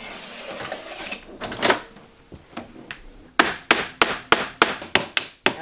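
Hammer driving nails into wooden door casing: a quick, even run of sharp strikes, about three to four a second, beginning a little past halfway. Before it come a second or two of rustling and a single knock.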